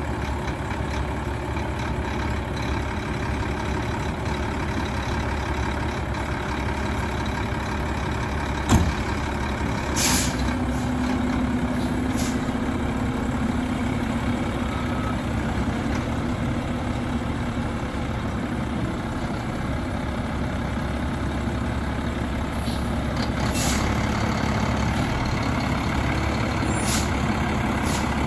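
Mack LR front-load garbage truck running steadily at low engine speed, with a sharp knock about nine seconds in and short hisses of air released from its air system a second later and again near the end.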